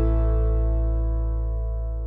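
Background music: a final chord with a deep bass note, held and slowly fading out after a passage of strummed guitar.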